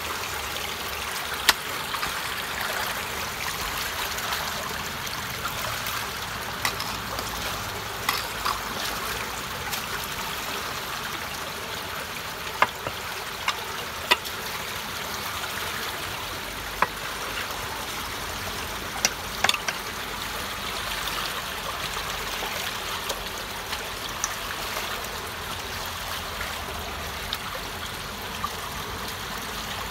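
Pond water rushing steadily into the mouth of a freshly unclogged culvert, draining the pond. A few short sharp clicks sound now and then over the flow.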